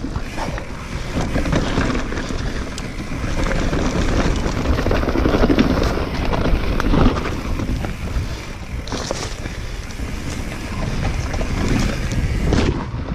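Mountain bike descending a rough dirt trail fast: wind buffeting the handlebar-mounted action camera's microphone over the rumble of tyres on dirt and rocks, with frequent short knocks and rattles as the bike hits bumps.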